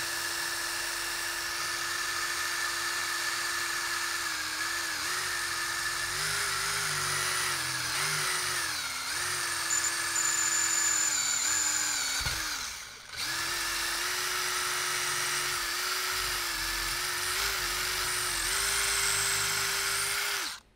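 Electric hand drill running a long, thin bit into the side of a Winchester 1892 magazine tube clamped in a vise, boring through the old brazed joint. The motor's whine sags each time the bit bites, stops briefly about two-thirds of the way through, then runs again and cuts off sharply near the end.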